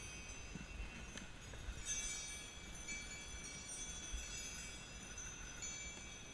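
Sleigh bells on a pony's harness jingling continuously as the pony pulls a sled through snow.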